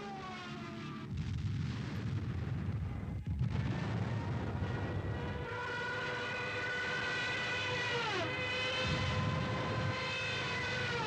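Propeller aircraft engines droning over a deep rumble as planes pass overhead. The engine pitch drops sharply with each pass, twice near the end.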